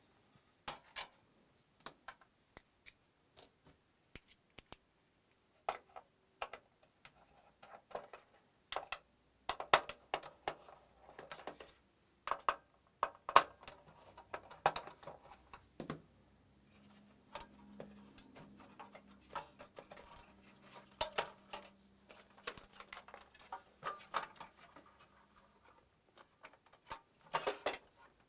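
Irregular clicks, clinks and light knocks of a PS4's metal shield, plastic frame and screws being handled during disassembly. A faint steady low hum runs for several seconds in the middle.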